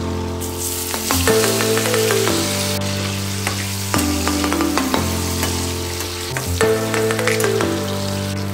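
Food sizzling as it fries in a pan, with stirring and short clicks, strongest in the first few seconds. Background music with sustained chords over a bass line plays throughout.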